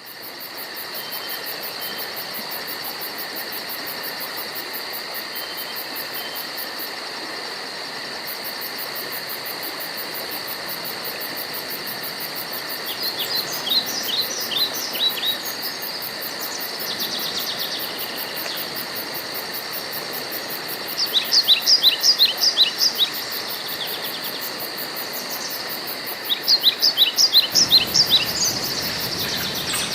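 Insects keep up a steady, high, pulsing chorus throughout. Over it, a songbird sings three short phrases of quick descending notes, about halfway through, about two-thirds through and near the end.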